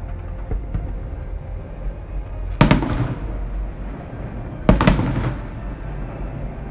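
Two fireworks shells bursting about two seconds apart, each a sharp bang with a short echoing tail, over a steady low rumble.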